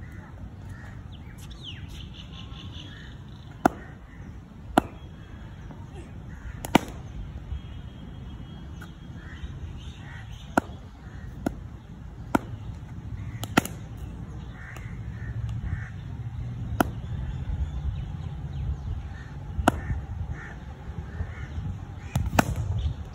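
Cricket ball impacts in net practice: about ten sharp cracks, spread irregularly, of leather ball on bat and on the concrete pitch. Crows cawing in the background.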